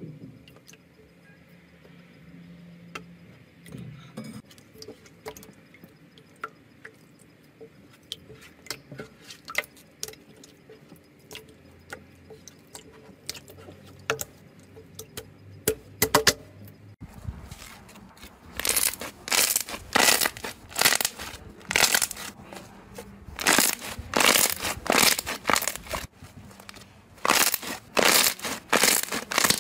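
Slime being pressed and squeezed by hand: sparse soft wet pops and clicks at first, from clear pink slime. About two-thirds of the way in, a thick white slime being squashed takes over with loud crackling bursts in quick runs.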